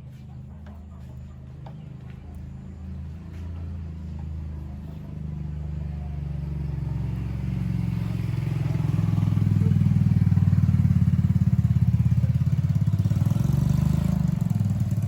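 Engine of a rice-milling machine running with a steady, fast low pulse. It grows louder from about five seconds in and is loudest near the end.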